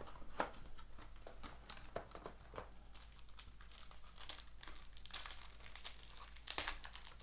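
Plastic trading card packaging crinkling and tearing as a pack is opened and the cards are handled, in short irregular rustles with a busier stretch about five seconds in.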